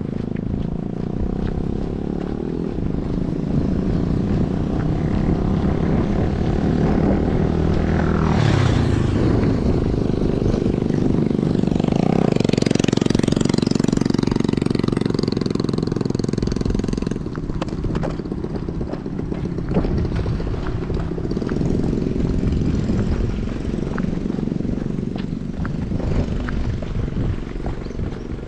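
Motor vehicles passing on a street over a steady low rumble. About a third of the way in one goes by with its pitch falling. Another, louder stretch of engine and tyre noise follows and stops abruptly a little past halfway.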